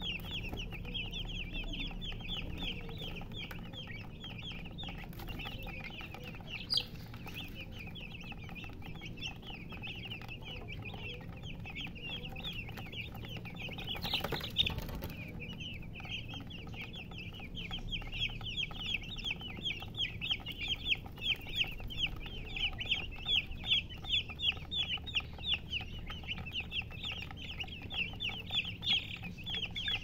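A flock of domestic chicks peeping continuously, many short, high, falling cheeps overlapping one another, growing louder and busier in the second half. A brief rushing noise cuts across them about halfway through.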